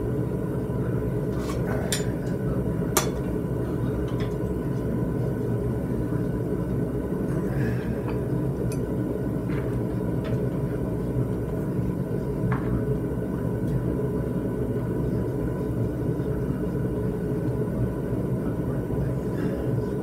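Gas forge running with a steady, loud low rumble, with a few sharp clicks on top, the strongest about three seconds in.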